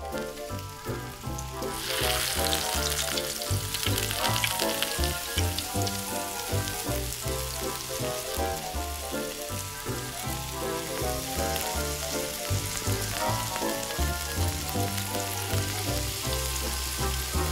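Chunks of seasoned beef sizzling as they fry in hot oil in a miniature steel pan. The sizzle starts about two seconds in and then holds steady, over background music.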